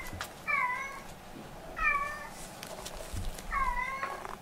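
A cat meowing three times, about a second and a half apart: recorded meows played back from a video.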